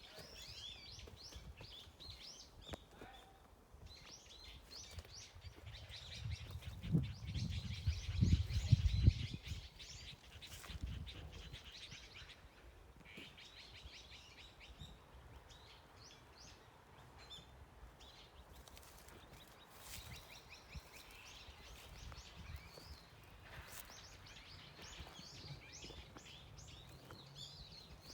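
Small birds chirping and singing in quick repeated notes. A low rumble comes in about six seconds in and runs for a few seconds, the loudest sound here.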